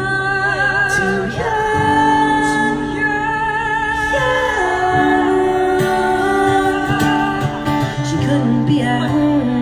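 Live acoustic song: a plucked guitar accompanying sung vocals with long held notes.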